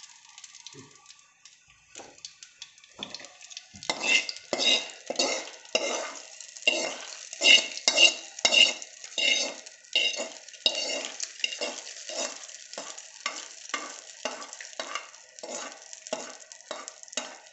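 Steel spoon scraping and tapping against a kadai in repeated strokes, about two a second, with a metallic ring, as hot oil tempering of mustard seeds, dal and curry leaves is pushed out of the pan into coconut chutney, sizzling as it lands. It is faint for the first few seconds and becomes louder about four seconds in.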